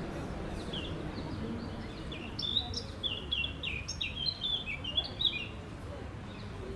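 Close songbird song: a quick run of short, high chirping notes for about three seconds in the middle, over a low steady wash of wind in trees.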